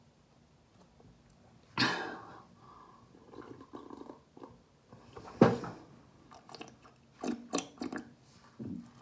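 A person gulping water from a leather shoe, with a sharp sputtering cough about two seconds in and a louder one about five and a half seconds in, then a run of short swallowing and spluttering noises.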